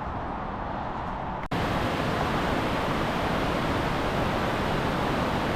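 Steady rushing noise, then a sudden cut about one and a half seconds in to a louder, brighter steady rush of falling water from a waterfall.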